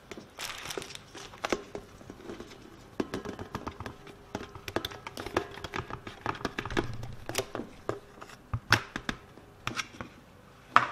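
Handling noise as sifted flour and cocoa powder are tipped into a metal stand-mixer bowl: scattered taps, clicks and knocks of a bowl and utensils with light rustling, the sharpest knocks about nine seconds in and again near the end.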